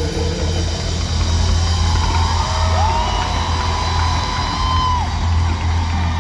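Concert crowd cheering and whooping over a held low bass from the live band, with a few whistles in the middle.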